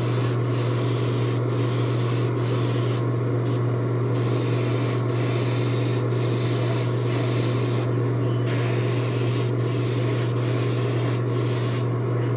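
Airbrush spraying color-shifting paint in light misting passes: a steady hiss of air that breaks off briefly a few times as the trigger is let go. A steady low hum runs underneath.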